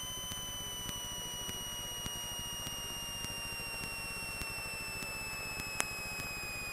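Cessna 172M cockpit audio on final approach: a steady high-pitched whine that slowly sinks in pitch, with faint ticks a little under twice a second and one sharper click near the end.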